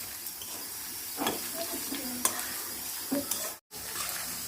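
Onions and potatoes frying in hot oil in a pan, sizzling steadily, with a few sharp clicks of a spoon against the pan as they are stirred. The sound drops out for an instant near the end.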